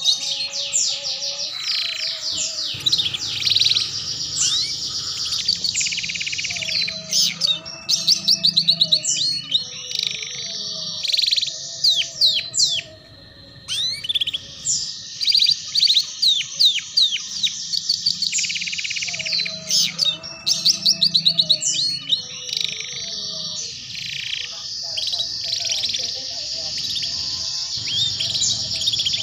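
Domestic canary singing long runs of rapid trills and twittering phrases, the fast chattering style called ngeriwik, used as tutor song for young canaries learning to sing. The song breaks off briefly about halfway through, then resumes.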